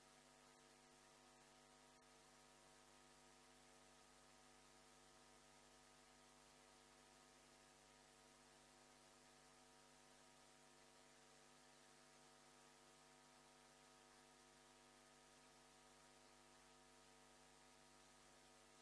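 Near silence: a faint, steady electrical hum with a light hiss.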